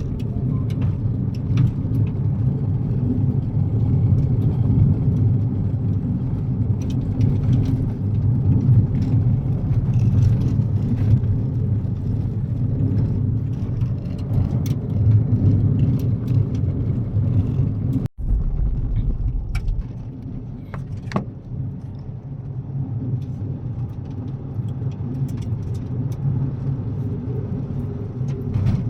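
Kia Picanto driving on a gravel road: a steady low rumble of tyres and engine, with scattered short clicks and ticks. There is a momentary break about two-thirds of the way through, after which the rumble is a little quieter.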